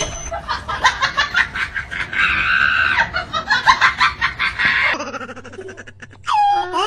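A hen clucking in rapid, uneven calls for about five seconds. Near the end comes a short, different call that bends up and down in pitch.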